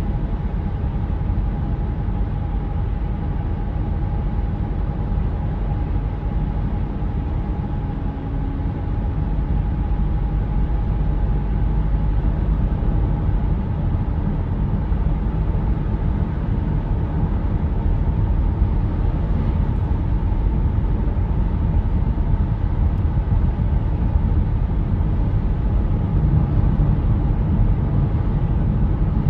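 Steady road and engine noise inside a moving car's cabin, with a faint steady whine.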